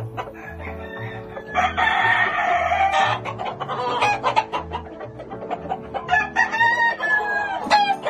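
A gamefowl rooster crowing twice, about a second and a half in and again about six seconds in, the second crow ending with a falling pitch. Background music with a steady bass beat plays underneath.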